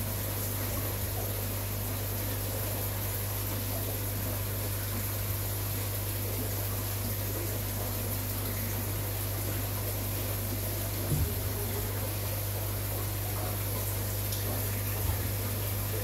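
Aquarium water pump running with a steady low hum under the hiss and bubbling of the tank's aeration. Two soft knocks, about eleven seconds in and near the end.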